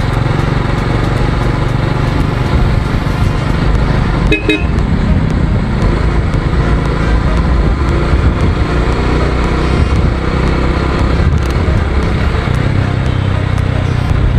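Honda Wave 125i, a 125 cc single-cylinder underbone motorcycle, riding along at steady cruise with engine and road noise. A short horn beep sounds about four seconds in.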